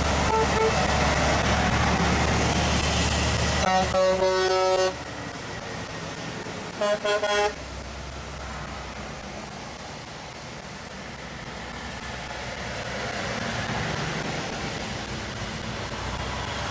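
Diesel semi-truck tractors driving past one after another on a wet road, with engines running and tyres hissing. A truck air horn sounds for about a second near four seconds in, followed by two short toots about three seconds later.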